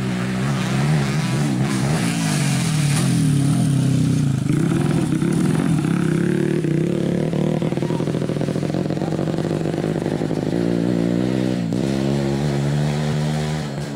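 Dirt bike engine revving hard on a motocross track, its pitch climbing and dropping with the throttle as the bike passes; another bike accelerates with a rising pitch near the end.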